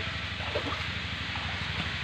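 Shallow muddy water splashing and churning as a child wades through a small creek pool, with a steady low hum underneath.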